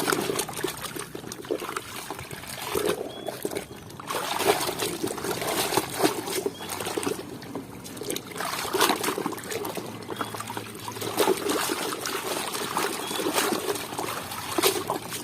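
Water trickling and splashing irregularly as a toy is rinsed clean.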